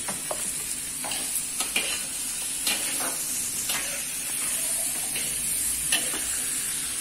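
Diced tempe sizzling steadily as it is stir-fried in a wok, with a metal spatula scraping and tapping against the pan at irregular moments, roughly once a second.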